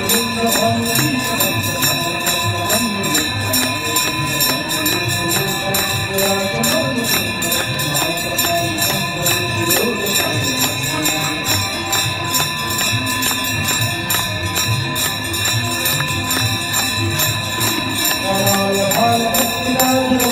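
Hindu aarti hymn sung to the rhythmic clanging of bells and cymbals, with the bells ringing on steadily.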